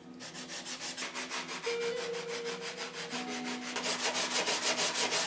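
240-grit sandpaper wet-sanding a foam-board model aeroplane fuselage: quick, even back-and-forth strokes, about four to five a second, getting louder toward the end.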